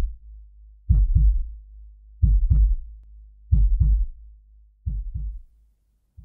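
Heartbeat sound effect: four double low thumps in a lub-dub pattern, about one and a third seconds apart, over a low hum, the last beat weaker.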